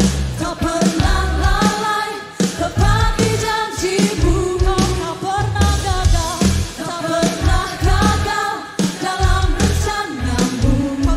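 Worship song: a singer's voice over a band with a steady drum beat and bass.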